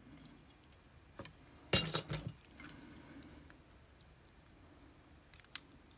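Small metallic clicks and clinks of tweezers working pins and a spring out of a Vachette V-DIS+ lock cylinder's pin chamber, with a short, loud cluster of clicks about two seconds in.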